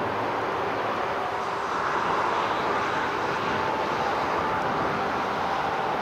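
Distant jet airliner on final approach: a steady engine noise that swells slightly about two seconds in, with a faint whine over it, mixed with strong wind on the microphone.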